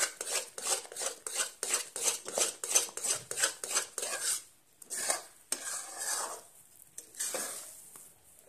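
A metal spatula scraping and stirring thick banana halwa in a stainless steel kadai: quick, rhythmic strokes of about four a second, slowing after about four seconds to a few longer scrapes that grow fainter.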